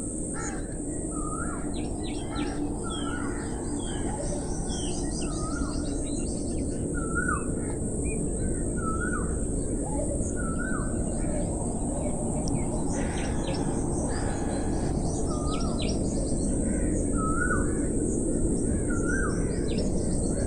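Birds calling over a steady low rushing noise. One bird repeats a short hooked call every second or two, while others chirp higher and more irregularly, over a faint steady high hiss.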